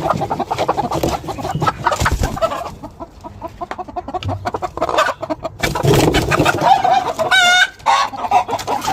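A flock of poultry-farm chickens clucking together in a dense, overlapping chatter, with scattered knocks. One clear, drawn-out call stands out about seven and a half seconds in.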